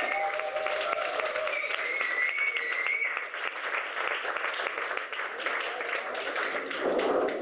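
Audience applauding, with cheering voices over the clapping during the first few seconds.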